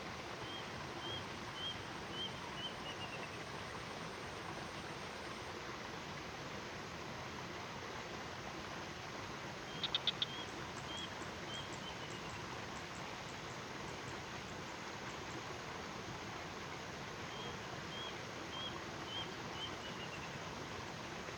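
An animal calling over steady outdoor background hiss: a short series of five or six high notes, the last ones falling in pitch, repeated three times. A quick burst of about four sharp clicks comes about ten seconds in.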